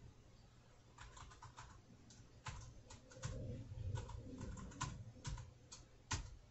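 Faint, irregular keystrokes on a computer keyboard, a password being typed in at a macOS login screen.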